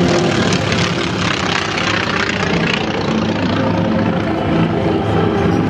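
North American T-28 Trojan's radial piston engine and propeller running as the aircraft flies past, the noise brightening and sweeping about two seconds in.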